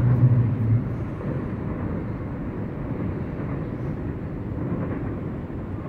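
Steady low rumble of a loaded freight train running away into the distance. A low steady drone carries over from before and cuts off under a second in, leaving the even rumble.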